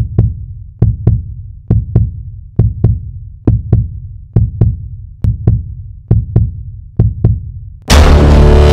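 Intro sound design built on a heartbeat effect: pairs of low thumps about once a second. Near the end a loud, sustained musical hit with held low tones cuts in.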